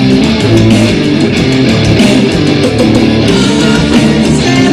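Live rock band playing loudly: electric guitar and bass over a drum kit, with cymbal hits throughout.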